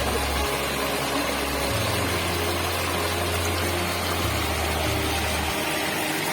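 Steady rush of waterfall water, with low bass notes of background music shifting every second or so underneath.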